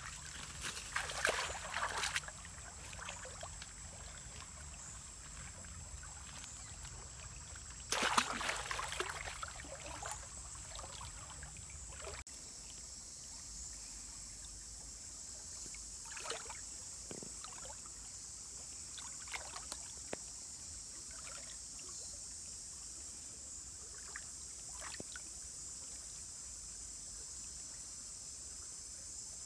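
Water splashing as a person wades and works with their hands in a shallow stream, in two louder bouts. About twelve seconds in the sound changes abruptly to a steady high insect buzz, with a few faint short handling sounds.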